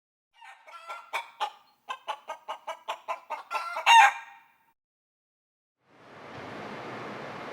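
A chicken clucking in a quick run of short calls, about four a second, ending in one louder squawk. Near the end a steady hiss of background noise sets in.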